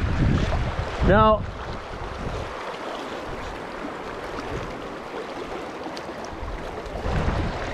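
Wind buffeting the microphone over the steady rush of river water, with a short rising pitched sound about a second in. The wind gusts ease after about two seconds and pick up again near the end.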